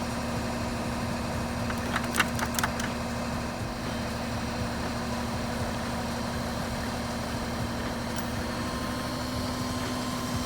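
An engine idling steadily with a constant low hum, and a few light clicks about two seconds in.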